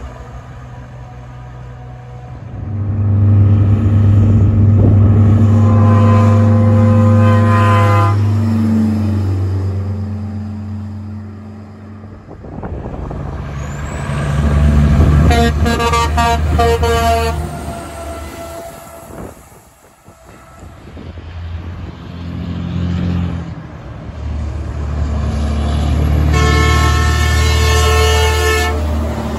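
Semi trucks pulling away with their diesel engines rumbling under load, sounding air horns in three long blasts: one about six seconds in, one around the middle and one near the end.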